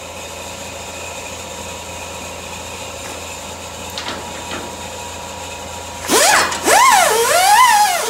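Small air tool on an air hose running with a zzz, zzz sound: a steady, quieter whir, then from about six seconds in a loud whine that swoops up and down in pitch over and over.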